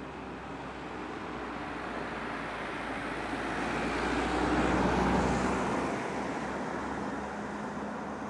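A motor vehicle passing close by: engine rumble and road noise that swell to a peak about halfway through, then fade.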